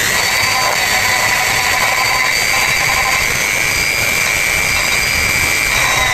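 Small electric rotary tool (mini die grinder) running at high speed with a steady high whine, its bit grinding into a coconut-shell sculpture. The pitch dips slightly near the end as the bit bears on the shell.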